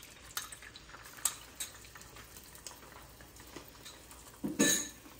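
Beaten eggs frying in melted butter in a small nonstick pan on a gas burner: a soft sizzle with scattered small crackles as the egg sets. A brief louder noise comes near the end.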